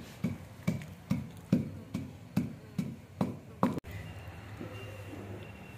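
Wooden pestle pounding almonds in a heavy stone mortar: dull thuds at an even pace of about two a second, which stop about two-thirds of the way in, leaving only a faint steady hum.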